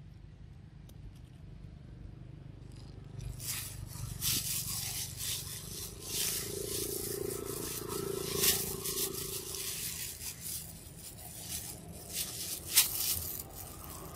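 Irregular dry scraping and crackling, a dense run of sharp clicks starting a few seconds in, with one sharper, louder click near the end.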